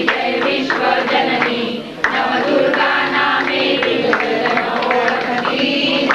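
A congregation singing a Marathi devotional hymn to the goddess Durga together, with hand claps keeping a steady beat. The singing breaks off briefly about two seconds in, then goes on.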